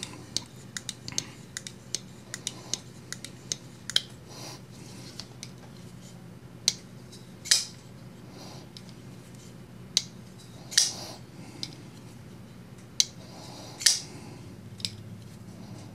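Griffin Company Scout F3 front-flipper folding knife being repeatedly flicked open and dropped shut, giving a string of sharp metallic clicks as the blade snaps open and closes on its detent, a few louder than the rest. The pivot has just been given a touch of oil, and the knife is being worked back and forth to break in the action.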